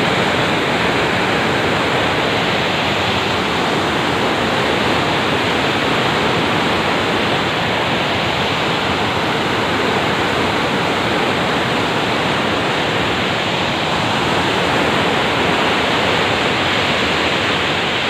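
Canal water rushing through the gates of a regulator and churning white below them: a loud, steady rush of water.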